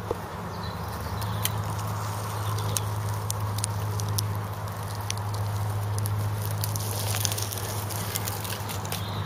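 Dry twigs and brambles rustling and crackling, with scattered sharp snaps that come thicker a few seconds before the end, over a steady low hum.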